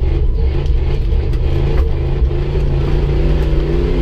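The 1999 Dodge Durango's engine running at low revs as the truck moves across the arena, heard from inside the cab. The engine note holds steady, with small rises and falls in pitch.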